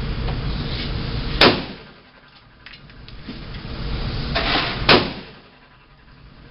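Two gunshots about three and a half seconds apart, each a sharp, very loud crack, after which the recording's background level drops sharply and slowly recovers.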